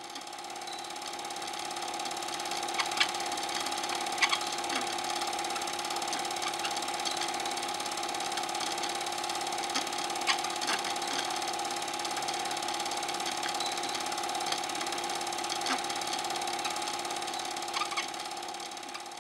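8mm cine projector running: a steady whirr and hum over hiss, with occasional sharp clicks. It fades in over the first couple of seconds and fades out at the end.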